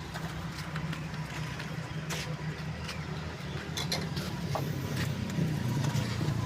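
A steady low mechanical hum, with a few short faint clicks.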